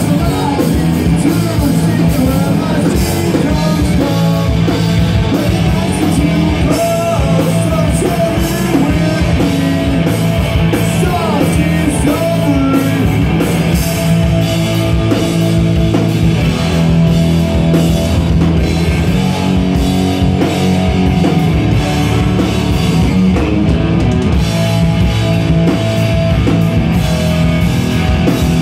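Punk rock band playing live, with distorted electric guitars over a drum kit.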